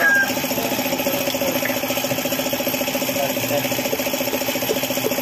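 Suzuki F6A three-cylinder engine idling steadily with a fast, even rattle, the knocking that is blamed on its oil pump no longer working.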